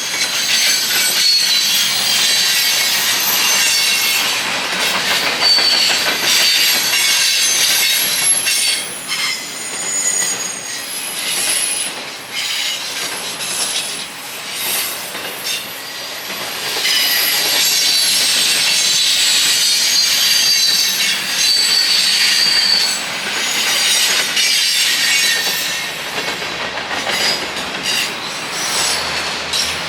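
Train rolling past with its wheels squealing on the rails in a string of shifting high-pitched squeals, over the rumble and clicking of the cars. The squealing eases off about halfway and comes back strongly soon after.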